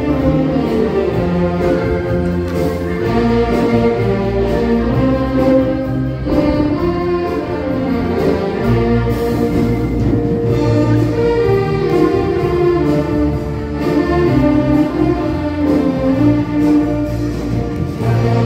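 Band music playing continuously, a melody line moving over held bass notes.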